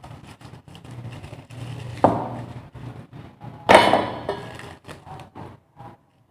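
Handling knocks and clicks, with two louder thumps about two seconds and three and a half seconds in.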